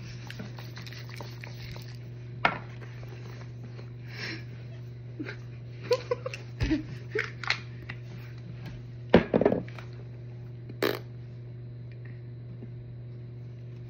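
A few scattered clicks and rustles from handling makeup cases, and a short muffled vocal sound about nine seconds in, over a steady low hum.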